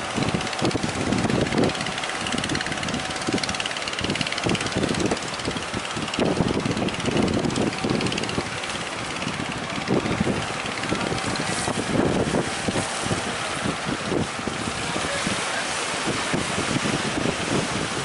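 Fishing boat engine running, mixed with wind buffeting the microphone and the rush of surf.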